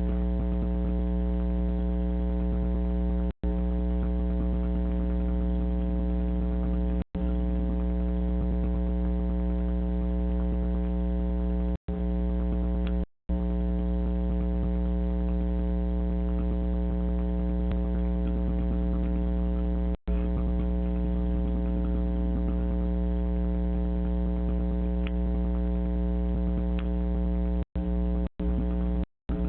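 Loud steady buzzing hum, one low pitch with many overtones, that never changes pitch and cuts out to silence for a split second several times.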